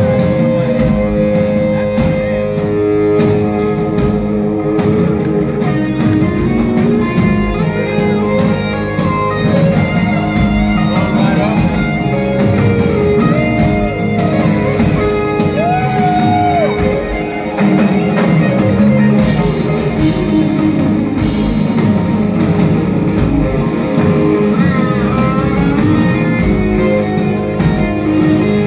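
Live rock band playing an instrumental passage: distorted electric guitars, bass and drum kit, with a few notes bending and gliding in pitch about halfway through.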